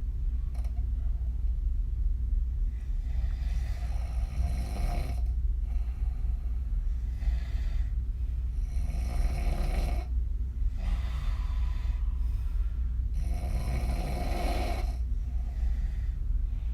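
A woman snoring with her mouth open, her lips puffing as she breathes out. The loudest breaths come about every four to five seconds, over a steady low hum.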